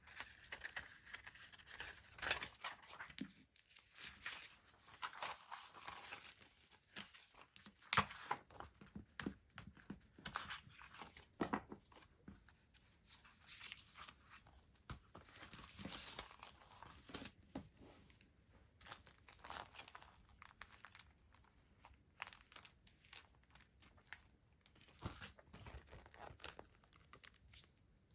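Stationery being unpacked by hand: plastic and paper packaging crinkling and tearing, with irregular small taps and clicks as items are handled.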